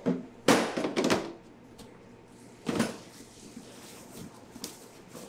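Bursts of clatter and scraping from objects being handled: a short knock at the start, a longer rattling burst about half a second in that lasts under a second, and another short burst near the three-second mark.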